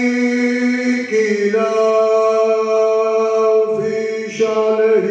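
A man's voice chanting a devotional recitation in long, drawn-out sung notes. The pitch steps down about a second in, and after a brief break a new held note begins near the end.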